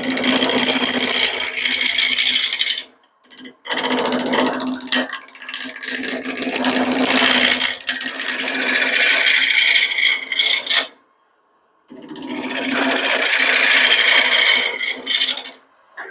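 Turning tool cutting a spinning walnut blank on a wood lathe, roughing it round: a loud rattling cut as the tool strikes the remaining flats of the rectangular blank, with a steady hum under it. The cutting stops briefly twice, about three and eleven seconds in.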